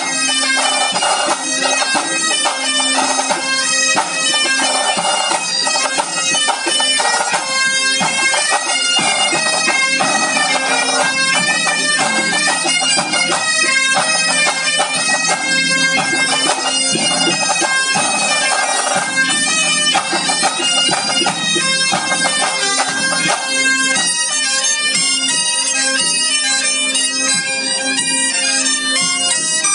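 A Breton bagad playing a tune: bagpipes over their steady drones, together with bombardes and drums. The sound thins out and turns more clipped in the last few seconds.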